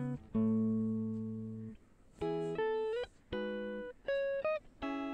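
Background music: a melody of plucked, guitar-like notes in short phrases, each note starting sharply and fading away.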